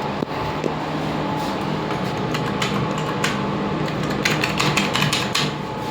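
Lift car travelling between floors: a steady low hum with a faint steady whine. From about two seconds in comes a run of sharp clicks and rattles.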